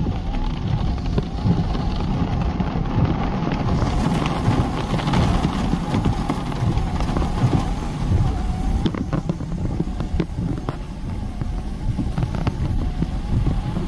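Low rumble of a car creeping along a rain-soaked road, heard from inside the car, with rain hiss, a faint wavering whine, and a few sharp knocks about two-thirds of the way through.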